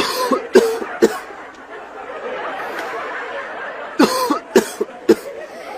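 A person coughing in fits: three hard coughs, a long breathy stretch, then a quick run of about four more coughs. The cough is labelled a coronavirus cough.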